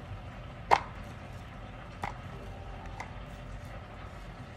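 Diced red onion being scooped by hand off a bamboo cutting board, with a sharp knock just under a second in and two lighter knocks about two and three seconds in.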